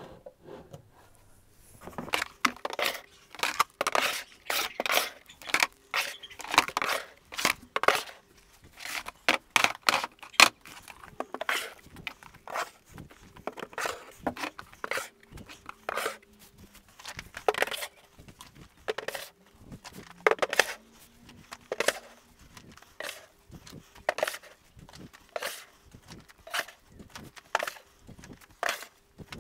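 Plastic parts-organiser cases and clip-handled plastic storage boxes slid one after another into the slots of a plywood rack: a long run of irregular clacks, knocks and scrapes of plastic on wood.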